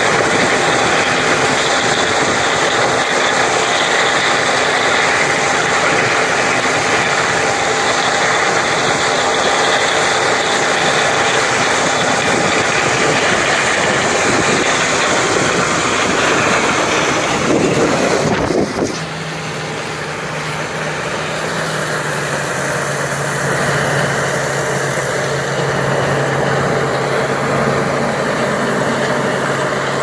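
John Deere S680 combine and the 8430 tractor pulling the grain cart, engines running loudly together while the combine unloads shelled corn into the cart on the go. About two-thirds through, the sound changes abruptly to a somewhat quieter, steadier engine drone as the combine harvests past.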